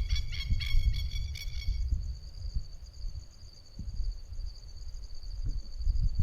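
Insects calling in a steady high drone, with a short pulsed chirping call, about four pulses a second, that stops about two seconds in. Underneath runs a louder low, uneven rumble.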